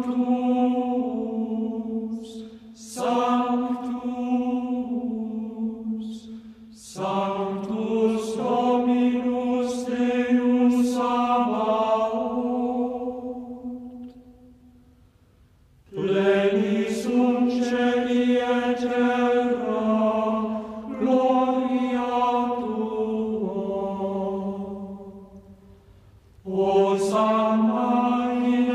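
Unaccompanied chanting: long sung phrases of held notes that step up and down, with brief breaks between phrases, the longest about halfway through.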